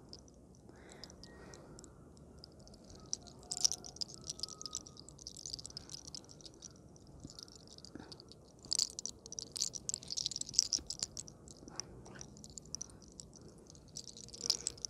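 Close-up crackling and rubbing of hands working through hair and over the skin of the neck during a massage, coming in several bursts of fine, dry clicks.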